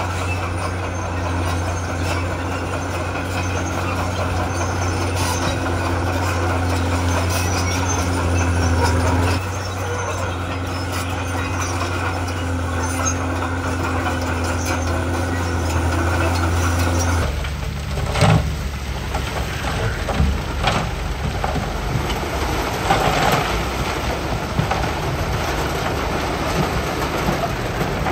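Heavy construction machine's diesel engine running with a steady low hum, dipping slightly about nine seconds in. Past halfway the sound changes abruptly to a rougher rumble with irregular knocks and clatter, one sharp knock standing out soon after the change.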